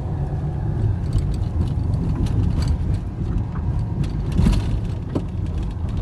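Car driving along a road, heard inside the cabin: a steady low rumble of engine and road noise, with a few light knocks and rattles scattered through it.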